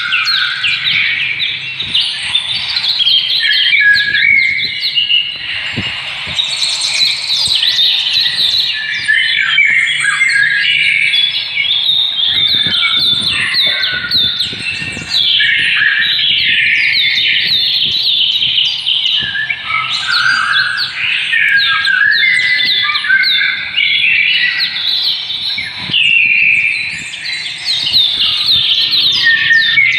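Many small birds chirping continuously and overlapping, a dense chatter of short high calls with no pause.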